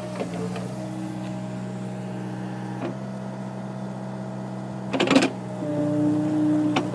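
Case mini excavator's engine running at a steady hum. There is a brief clatter about three seconds in and a louder one about five seconds in, and a higher tone grows stronger near the end.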